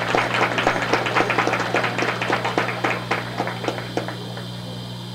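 An ensemble of Chinese hammered dulcimers (yangqin) playing a fast passage of rapid beater strikes on the strings. The notes thin out after about four seconds and are left ringing.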